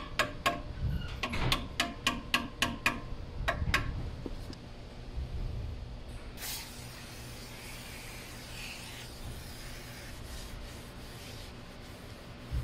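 A quick run of sharp clicks during the first few seconds. Then, about six seconds in, an aerosol can of brake cleaner starts suddenly and sprays onto the brake rotor in a steady hiss for about two and a half seconds, followed by faint rubbing as the rotor is wiped with a paper towel.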